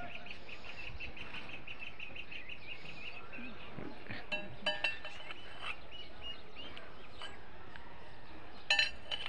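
Steel hand tools, a long pry bar and a T-handled track spanner, clinking against each other with short ringing clinks about halfway through and again, louder, near the end. Under them runs a steady, rapid chirping at about five chirps a second.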